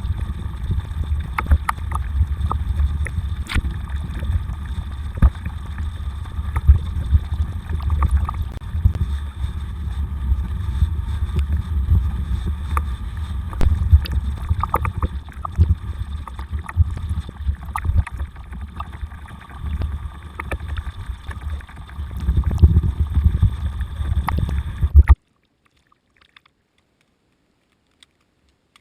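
Bicycle ridden through snow: a steady low rumble of wind and tyre noise on the microphone, with scattered clicks and rattles. It cuts off suddenly near the end, leaving near silence.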